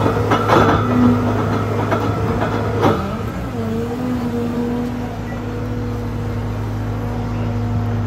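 Remu EX 140 screening bucket's spinning screening rotors crunching through soil and stones, a dense run of sharp clicks and crunches over the excavator's steady hum. About three seconds in the crunching stops with one last sharp crack, and the CAT excavator's engine and hydraulics run on with a steady hum.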